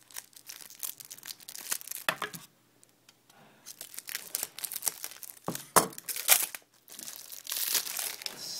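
Plastic wrapping being torn open and crinkled by hand, in irregular crackling spurts with a brief lull partway through and a few sharper crackles later on.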